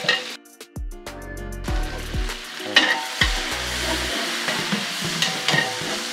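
Oil sizzling steadily in a large aluminium biryani pot as coriander and mint leaves are stirred into the fried onions with a long metal ladle. The ladle scrapes the pot a few times in the second half.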